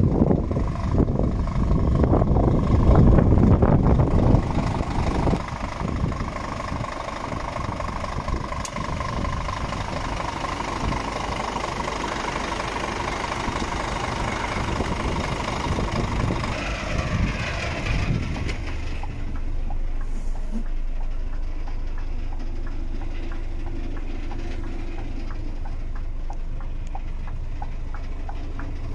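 Scania R490 truck's 13-litre inline-six diesel idling, loudest and roughest in the first few seconds. About two-thirds of the way through it turns to a duller, steady low hum, as heard from inside the cab.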